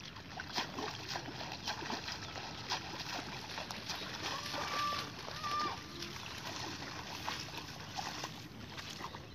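Shallow water splashing and sloshing in irregular bursts as a hand push net is shoved through a flooded rice paddy and feet wade through the water. Two brief steady whistle-like tones sound about halfway through.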